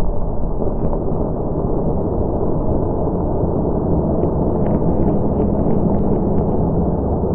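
Fireworks slowed down with reverb: a continuous, muffled low rumble of blended blasts, with a scatter of faint crackles about four seconds in.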